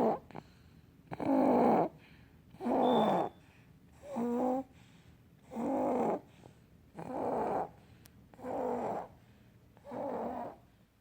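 A months-old baby snoring in sleep: a rough snore on each breath, about one every second and a half, eight in a row.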